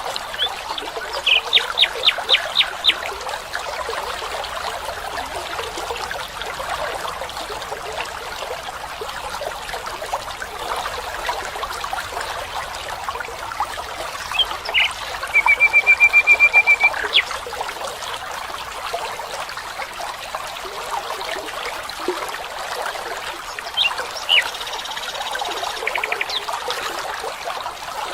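Stream water trickling steadily, with a bird calling over it: a quick series of sharp notes about a second in, a fast even trill around the middle, and a few more notes near the end.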